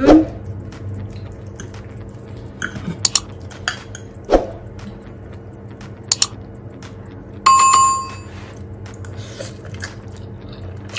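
A metal fork clinks and scrapes on a ceramic plate as spaghetti is twirled, giving a few short sharp clicks. About seven and a half seconds in comes a short bell-like ding lasting about half a second.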